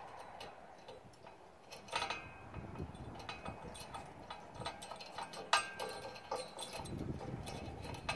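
Irregular small metal clicks and clinks of a washer, lock washer and nut being fitted by hand onto a bolt through a steel light-bar bracket, with a few ringing clinks.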